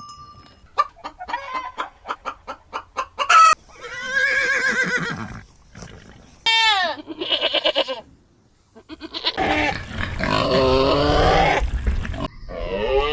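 Chickens clucking in a quick run of short notes, then several drawn-out calls with rising and falling pitch, among them a rooster crowing.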